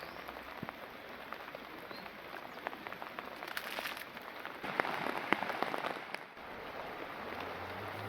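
Heavy rain falling, with many separate drops ticking sharply close by. It grows louder for a second or so past the middle, then eases briefly.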